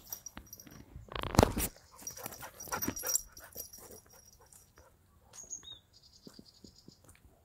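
A husky scrabbling at loose earth and then moving about on a dirt road. A loud scraping rush comes about a second in, followed by light scattered scuffs.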